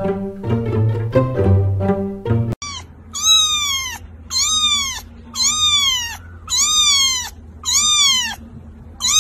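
A very young kitten meowing over and over, about one high-pitched cry a second, each cry rising and then falling. In the first couple of seconds a string-led music track plays and then cuts off abruptly.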